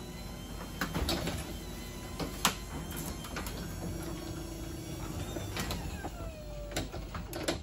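Garage door opener running a sectional garage door up: a steady motor hum with scattered clicks and rattles from the door and track as it rises.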